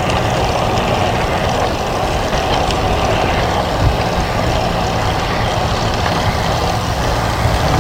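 Steady rush of wind over the microphone while riding a road bicycle, with road noise and a low hum underneath.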